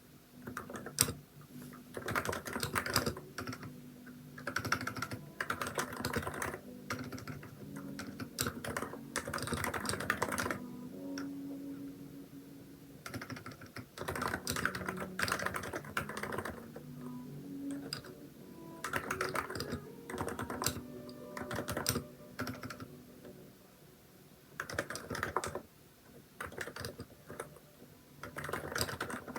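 Typing on a Hansung electrostatic capacitive (non-contact) keyboard with XDA-profile keycaps. The keystrokes come in quick runs of a few seconds each, broken by short pauses.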